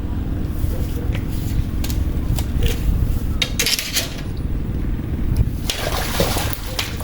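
Water splashing in short bursts, about three and a half seconds in and again from near the end, over a steady low rumble.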